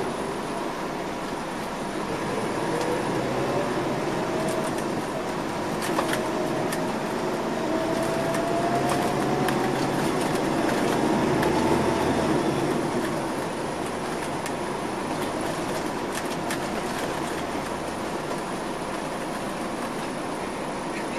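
Interior running noise of a 2004 MCI D4500CL coach with a Caterpillar C13 diesel and Allison automatic transmission, under way: a steady rumble and road noise with a drivetrain whine that climbs slowly in pitch as the coach gathers speed, then eases off about halfway through. Light rattles from the cabin now and then.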